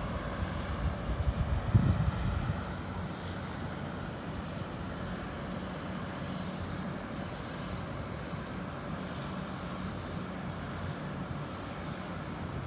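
Bulldozer diesel engines running steadily, a continuous low hum over a haze of noise, with a few louder low bumps about two seconds in.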